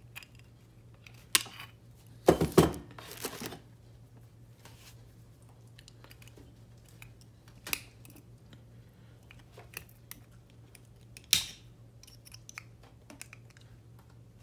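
Small metal cutters clicking and scraping against a gold-filled pocket watch case as they pry at a tiny stainless steel pin: scattered sharp metallic clicks, with a louder cluster of scrapes about two and a half seconds in, over a faint low hum.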